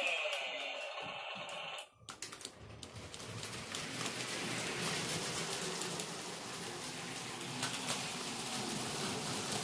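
Remote-controlled Lego train running along plastic Lego track with a steady rattling clatter, after a brief dropout about two seconds in.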